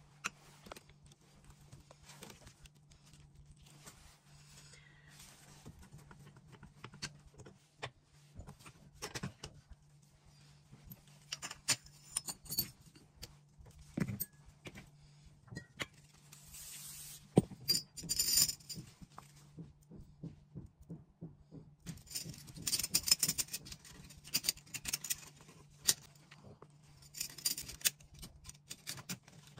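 Metal parts of a stripped-down Beretta semi-automatic shotgun clicking and clattering as they are handled and worked on at a bench. The clicks are scattered at first and come thicker in the second half, with the sharpest one a little past the middle. A steady low hum runs underneath.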